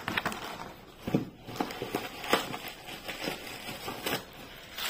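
Plastic packaging being handled and crinkled, in a string of short, sharp crackles and rustles.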